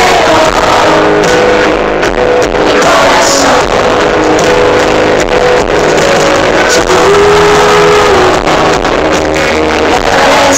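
Loud live pop band music recorded on a phone from the audience: drum hits and held melody notes over an acoustic guitar.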